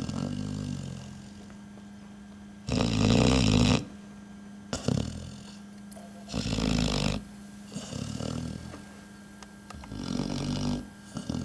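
A dog snoring in its sleep: three loud snores about every three and a half seconds, with quieter, softer snoring breaths between them.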